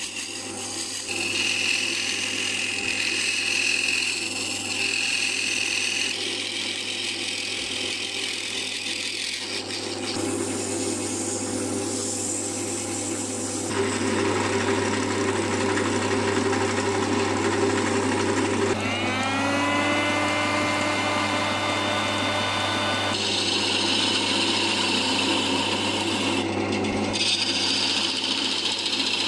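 Wood lathe running with a steady hum while a hand-held turning tool cuts into the spinning honghuali wood, a scraping, shaving sound that changes abruptly several times. About two-thirds of the way through, a whine rises in pitch and then holds steady.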